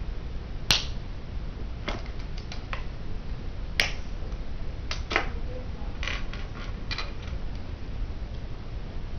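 Hard plastic Bionicle pieces clicking and snapping together as they are pushed into place by hand: sharp single clicks, the loudest about a second in and another near four seconds, with smaller clusters of clicks between, over a low steady hum.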